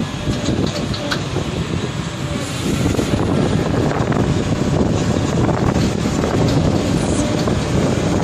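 Caterpillar 329D L hydraulic excavator running steadily at a constant level while its hydraulics turn a rotating demolition crusher attachment. A few light clicks can be heard, one of them about a second in.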